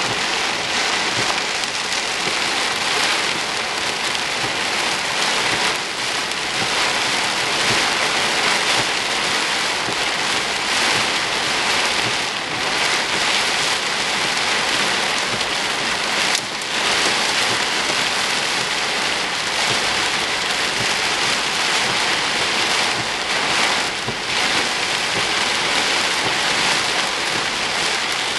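Heavy wind-driven rain coming straight at the microphone: a steady, dense hiss of rainfall.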